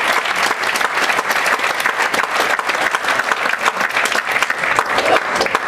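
Audience applauding with dense clapping.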